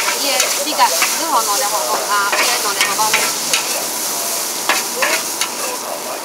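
Char kuey teow stir-frying in a large wok over high heat: the noodles sizzle steadily while a metal spatula scrapes and clacks against the wok many times.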